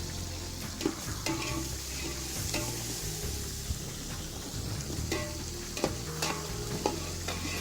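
Onions and pounded garlic sizzling as they fry in oil in a pot. They are stirred with a spoon that scrapes and clicks against the pot every second or so.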